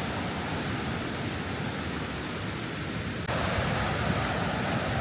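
Steady rushing of creek water over shoals, stepping up abruptly louder a little over three seconds in.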